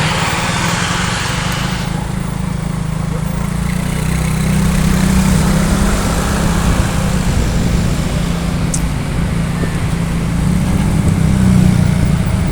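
Tour bus's diesel engine running steadily close by, a deep continuous rumble that swells a little at times. A hiss over it stops about two seconds in.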